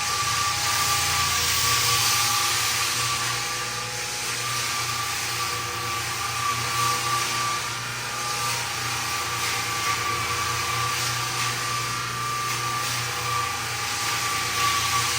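Drum floor sander running steadily over a wooden floor: a constant motor whine over the hiss of the sanding drum.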